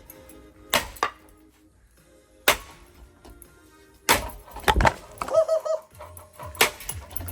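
A ceiling fan being smashed: a series of sharp, irregular blows and cracks, with a short wavering whine about five seconds in.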